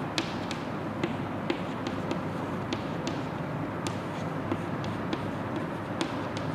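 Chalk writing on a blackboard: irregular sharp taps, about two a second, over a steady background hiss.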